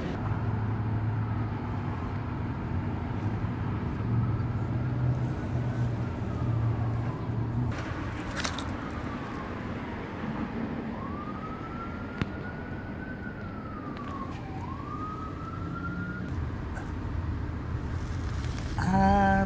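Distant emergency-vehicle siren in a slow wail, its pitch rising and falling over and over, above a steady low rumble of street traffic.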